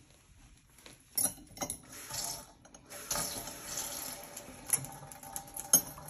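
Kitchen tap running a thin stream of water into a steel sink, steady from about three seconds in. Before it, a few short clinks and knocks of metal dishes in the sink.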